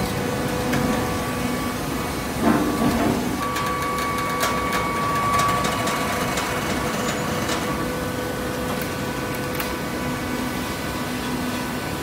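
Horizontal automatic-tie cardboard baler running, a steady mechanical hum from its hydraulic power unit. A loud clank comes about two and a half seconds in, with a few sharp clicks a little later.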